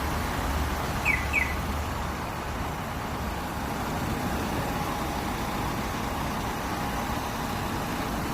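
Hyundai Mighty truck's diesel engine idling steadily after being started by remote starter, with two short high chirps about a second in.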